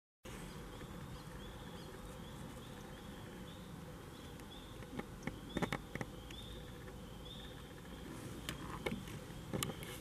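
Tree frogs calling: short high peeps repeated about once or twice a second over steady low background noise. A cluster of sharp clicks and knocks comes a little after the middle and again near the end.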